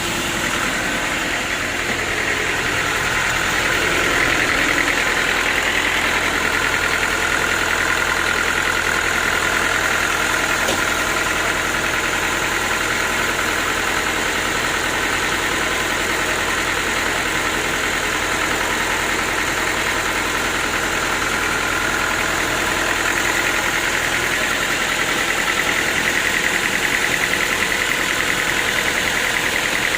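Sawmill engine running steadily, with a high whine over the engine note.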